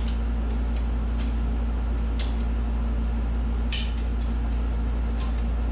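Click-type torque wrench clicking a few times as the cylinder head bolts are brought up to a higher torque setting, the sharpest click about three and a half seconds in. A steady low hum runs underneath.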